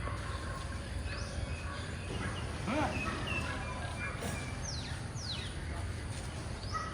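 Birds calling over a steady low outdoor rumble: a short call about a third of the way in, then a few quick high calls that fall steeply in pitch about two-thirds through.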